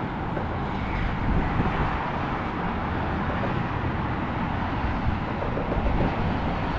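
Wind buffeting the microphone: a continuous rushing noise with a gusty low rumble.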